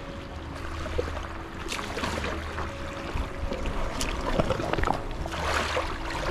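Water sloshing and splashing as a person climbs out of an inflatable kayak and wades in shallow water, the splashing growing toward the end, over soft background music with sustained tones.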